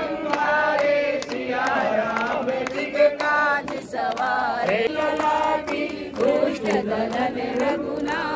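A group of men and women singing an aarti hymn together, clapping along in a steady beat of about two to three claps a second.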